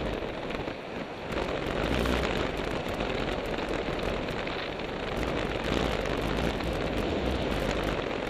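Mountain bike rolling fast down a dirt forest trail, heard through a helmet-mounted camera: steady rushing wind on the microphone and low tyre rumble, with many small clicks and knocks from the bike over the rough surface.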